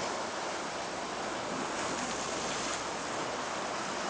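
Ocean surf washing steadily against a rocky shore.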